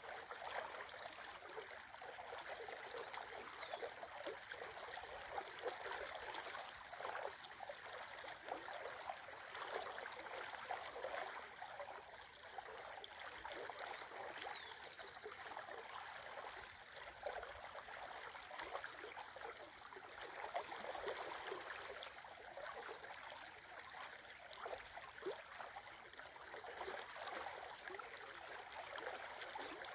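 Shallow river flowing over a riffle: a steady rippling and gurgling of water.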